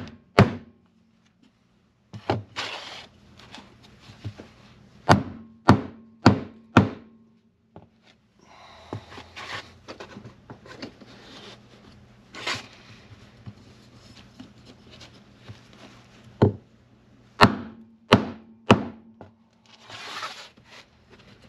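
Hammer knocking a cardboard template down onto the seat-mounting bolts in a car floor, to mark the bolt positions. About a dozen sharp knocks come at uneven intervals, with the cardboard rustling and rubbing between them.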